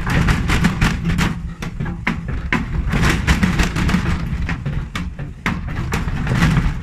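Hotpoint Ariston front-loading washing machine running its drum on a heavily unbalanced load with one shock absorber removed and no tachometer: a steady low rumble with loud, irregular banging knocks several times a second.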